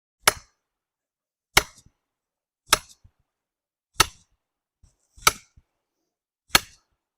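Six sharp, evenly spaced blows about a second and a quarter apart: a sledgehammer pounding a hatchet into the back cut of a Bradford pear trunk as a makeshift wedge.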